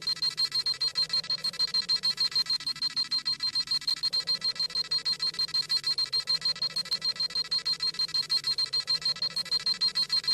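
Dragon Ball Z scouter sound effect: rapid, even electronic beeping at about seven beeps a second, high-pitched, the scouter scanning a power level.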